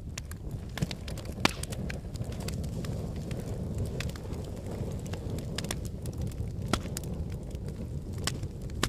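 Wood fire crackling and popping: a dense scatter of sharp snaps over a steady low rumble, the loudest pops about one and a half seconds in and near seven seconds.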